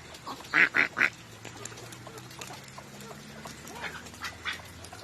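Ducks quacking: three loud quacks in quick succession about half a second in, then scattered fainter calls.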